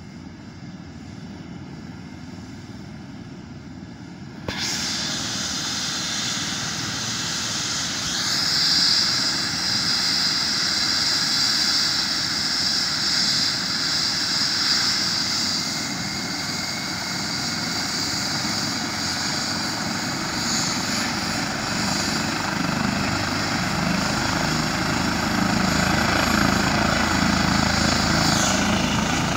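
Airbus H135 helicopter's twin turbine engines starting up on the ground. The turbine noise comes in suddenly about four seconds in and climbs again with a high whine a few seconds later, and a deeper rotor sound builds toward the end as the rotor runs up.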